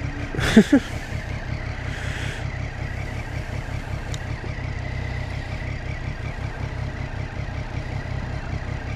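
2014 Triumph Street Triple R's 675 cc three-cylinder engine idling steadily at a standstill, with an even low pulse. A short louder sound cuts in about half a second in.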